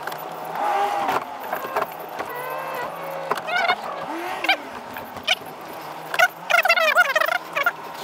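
Repeated short warbling calls with a fast-wavering pitch, the densest run about six to seven and a half seconds in, over a steady low hum.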